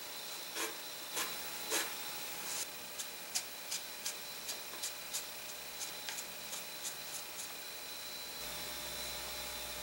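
A wooden stick scraping and dabbing rocket epoxy along the fin joints of a cardboard rocket body tube and against a small plastic mixing cup. It makes a quick run of short scrapes and taps, two to three a second, which stop about three-quarters of the way in.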